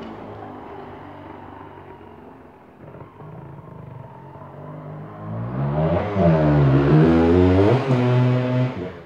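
125 cc motorcycle engine running as the bike rides back and forth. The note fades over the first few seconds, then grows loud from about halfway as the bike comes back close, its pitch dipping and rising with the throttle, and drops away just before the end.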